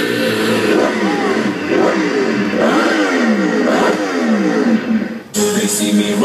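Loud electronic dance music played over a sound system, built on repeated falling synth glides about once a second. Just after five seconds it drops out briefly and a new section with steady held synth tones comes in.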